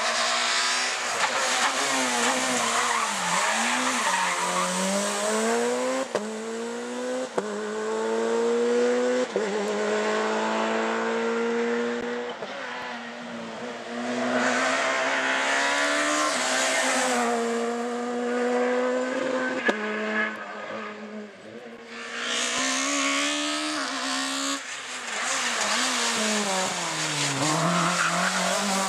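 Rally cars driven hard through tarmac corners one after another. Each engine's pitch drops as the car brakes into the bend, then climbs step by step through the gears on the way out, with sharp cracks at some of the shifts.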